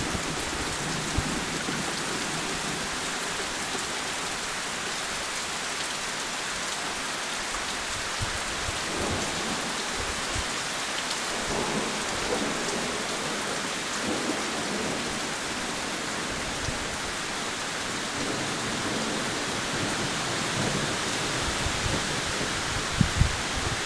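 Heavy rain pouring steadily, a dense even hiss, with a few brief low thumps scattered through it, the loudest near the end.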